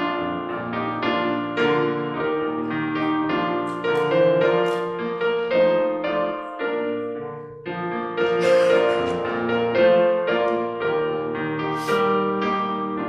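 Piano playing an instrumental, its notes sounding in a continuous flowing line, with a brief drop about seven and a half seconds in.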